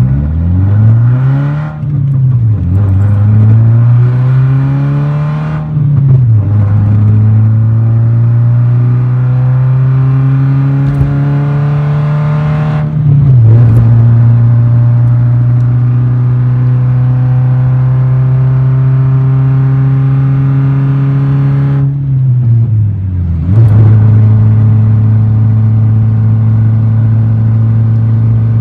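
Volkswagen Jetta's exhaust, really loud from inside the cabin, as the car accelerates through the gears. Engine pitch climbs and drops sharply at each of several upshifts in the first half, then holds steady at cruise with one brief dip and recovery near the end. The exhaust is in need of repair.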